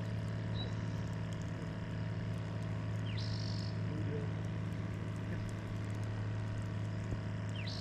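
Boat motor running with a steady low hum, and a bird chirping briefly twice over it.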